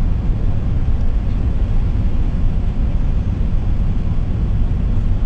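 Steady low rumble of a four-engined jet airliner heard from inside the passenger cabin on approach to landing: engine and airflow noise, even throughout with no separate events.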